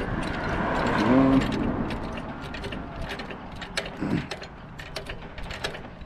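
Hydraulic floor jack worked by its long handle under a trailer, with a run of irregular metallic clicks from the pump and handle.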